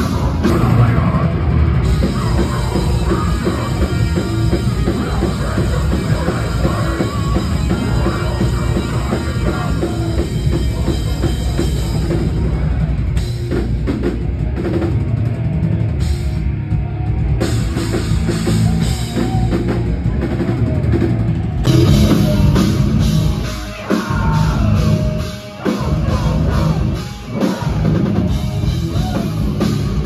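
Live metal band playing loud on a club stage, with a drum kit pounding under the guitars. In the last several seconds the band plays in stop-start hits, dropping out briefly and crashing back in a few times.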